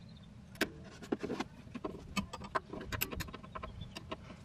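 Irregular light metallic clicks and taps of a flare-nut wrench on a rear brake line fitting as the fitting is worked until it breaks loose.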